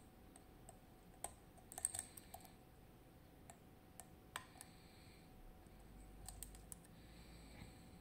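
Small, sharp, irregular metallic clicks and taps of a hook pick working the pins inside a FAB 2000 lock cylinder under tension, with a quick cluster of clicks about two seconds in: picking to set the first and fifth pins.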